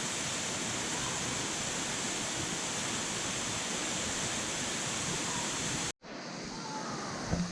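Steady rushing of a waterfall, an even hiss of falling water. It cuts out abruptly about six seconds in and comes back slightly quieter.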